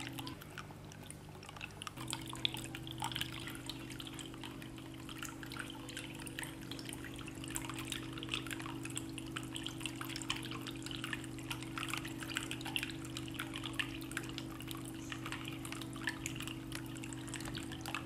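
Water trickling and dripping from bamboo spouts into the water-filled bamboo cups of a small tabletop fountain: a continuous patter of many small irregular drips and splashes, over a low steady hum.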